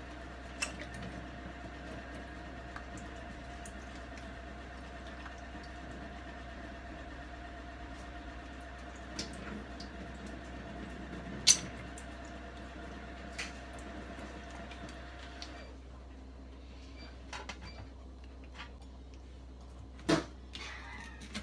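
Tap water running steadily into a stainless-steel sink while sardines are rinsed under it, with occasional sharp clicks of handling. The water stops about three-quarters of the way through. A few light taps follow, then a sharper knock near the end as a sardine is cut on the plastic cutting board.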